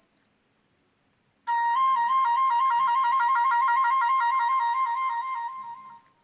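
Nokia C6-00 ringtone: after a short silence, a quick trill alternating between two close high notes starts about a second and a half in, then fades out near the end.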